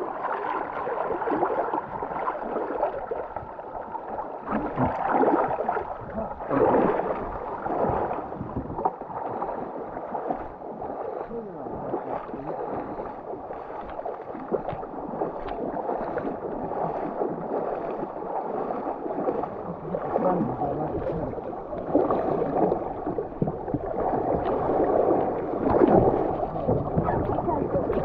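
Water splashing and gurgling around a paddle and board moving down a river, with many small sharp ticks, rising and falling in loudness throughout.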